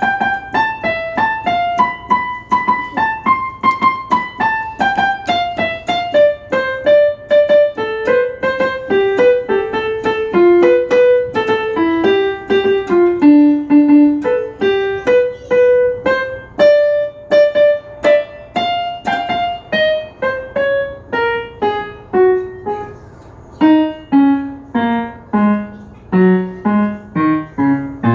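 Piano playing a steady melody of separate notes. The tune moves downward from high notes to lower ones, and low notes come in near the end.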